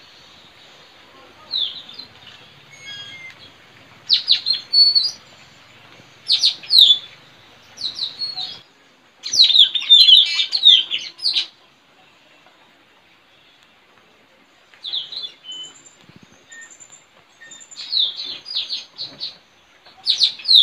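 Blue-rumped parrots (tanau) calling: clusters of short, sharp, high-pitched calls, each dropping quickly in pitch, with quieter gaps of a few seconds between the clusters.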